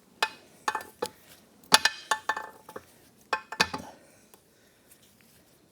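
Sharp metal taps and clinks with a short ring, about eight strikes in the first four seconds, then they stop: a gearbox shaft being knocked through a split motorcycle engine case.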